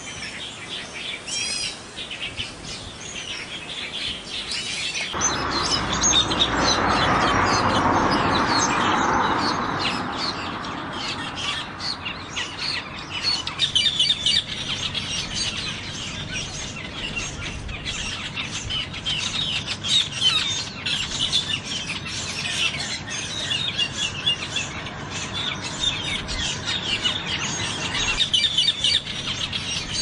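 Asian glossy starlings (cucak keling) calling, a dense stream of rapid high chirps and twitters. A rushing noise swells about five seconds in and fades by the middle.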